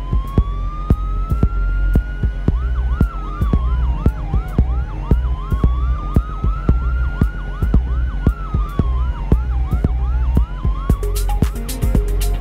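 Siren effect within a house music track: a slow wail that rises and falls about every five seconds, broken by fast yelping warbles, over a steady four-on-the-floor kick about two beats a second. Near the end, busy hi-hats and a bass note come in as the groove fills out.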